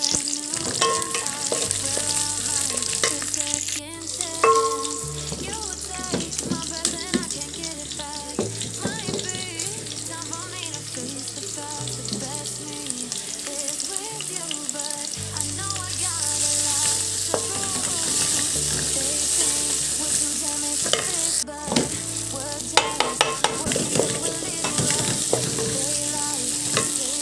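Sliced onions sizzling in hot oil in a metal pot, stirred with a wooden spatula that scrapes and taps the pot. Minced garlic and ginger are stirred in partway through, and the sizzle keeps going.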